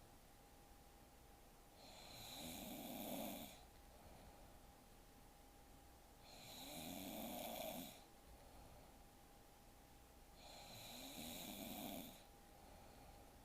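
A woman snoring quietly in her sleep: three slow, even snores about four seconds apart, each lasting about a second and a half and swelling as it goes.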